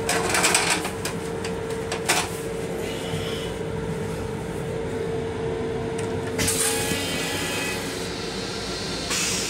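Paper crinkling and rustling as toilet paper is pulled from a dispenser and stuffed into the toilet bowl, loudest in the first second, with a sharp click about two seconds in and two more brief rustles later. Underneath runs the steady low rumble of the railcar, with a steady hum that stops about seven seconds in.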